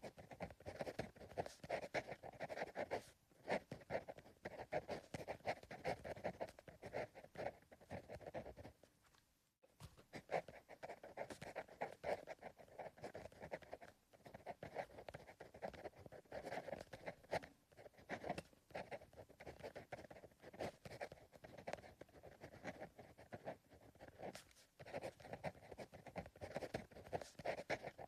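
Soft sound of a pencil writing on paper: a continuous run of short scratching strokes, with a brief pause about nine and a half seconds in.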